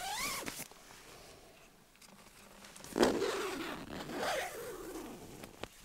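Tent door zipper on a Big Agnes Copper Spur UL2 being unzipped in pulls with a rising zip. A short pull comes at the start, and a louder, longer one about three seconds in.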